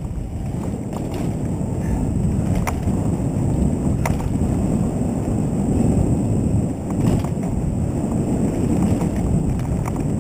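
Mountain bike riding fast over a rough dirt trail, picked up close to the bike: a steady rumble of tyres on dirt mixed with wind buffeting the microphone, with a few sharp clicks and rattles from stones and the bike.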